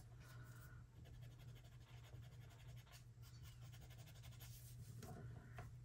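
Near silence: faint scratching of a drawing tool rubbed over watercolour paper, over a low steady hum.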